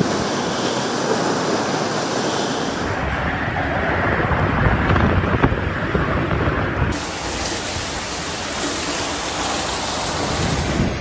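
Storm noise: heavy rain and wind as a steady, dense rush, with deep rumbling strongest in the middle. The sound changes abruptly about three and seven seconds in.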